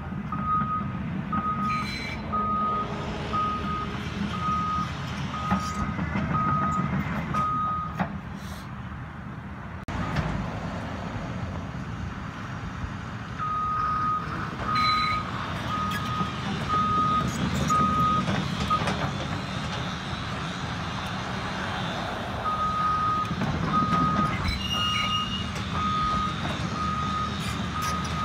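Caterpillar 324E tracked excavator's diesel engine running while the machine travels, its travel alarm beeping at about one and a half beeps a second. The beeping comes in three runs and stops twice for several seconds.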